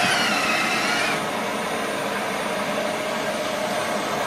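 Electric drill running against the wall to fix a shelf bracket: a high whine that settles and fades about a second in, over a steady whir that carries on.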